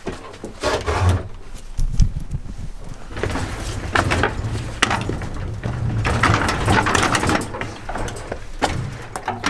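Footsteps on a brick floor with knocks and rustling handling noise from a handheld camera being carried about a small workshop; irregular clatters throughout, busiest in the middle.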